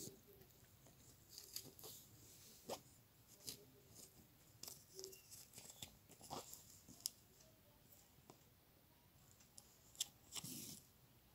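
Faint handling sounds: scattered small clicks and rustles of red embroidery thread wound around a foil medicine blister pack that serves as a tassel form, with a short cluster of rustling near the end.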